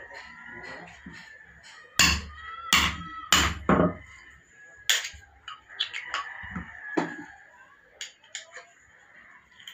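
Four quick sledgehammer blows on a steel hole punch being driven into a thick block of tyre rubber, each with a short metallic ring. They are followed by one lighter knock and a few small clicks and taps as the punch and rubber are handled.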